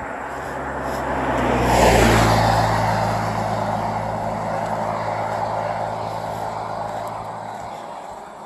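A motor vehicle passes close by on the road: tyre and engine noise swell to a peak about two seconds in, with a steady low engine hum, then fade slowly away over the following seconds.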